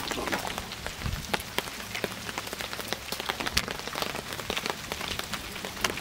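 Popcorn kernels popping inside a foil pan over a wood campfire: many quick, irregular pops that run together into a rain-like patter, with the fire crackling underneath.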